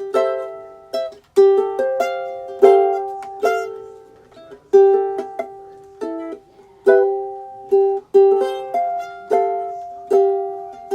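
Ukulele chords played in a steady rhythm, each chord ringing and fading before the next.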